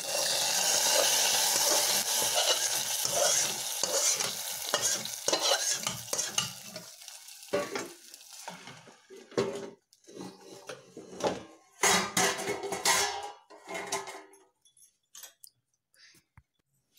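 Hot oil tempering of dried red chillies, curry leaves, garlic and panch phutana poured into a pot of kanji, sizzling loudly for the first several seconds and then dying down. After that comes a spatula scraping and knocking against the aluminium pot and pan.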